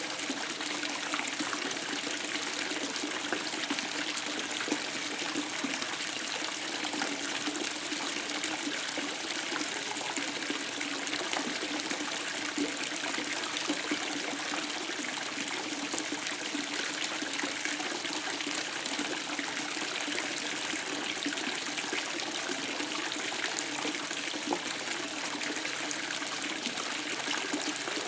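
Bathtub tap running, a steady stream of water splashing into the tub.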